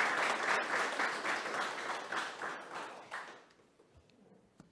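Audience applauding, dying away about three seconds in.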